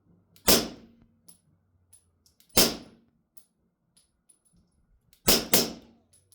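Four suppressed 9mm pistol shots from a Beretta 92 fitted with a Yankee Hill Machine .45 suppressor, firing 147-grain subsonic rounds. Two single shots come about two seconds apart, then a quick pair near the end.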